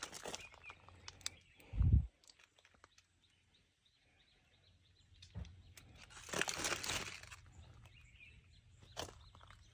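Handling noise while moving among potted bromeliads: a low bump about two seconds in, then a brief rustle about six to seven seconds in, with a few light clicks.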